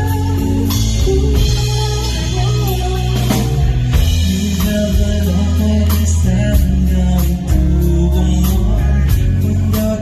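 A live band playing with a lead singer, sung over steady bass notes and a regular drum beat.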